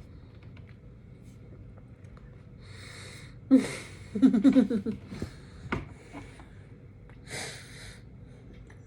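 A person's noisy breathing, with a sudden loud throat sound about three and a half seconds in, followed by a short pitched vocal sound, and another breath near the end.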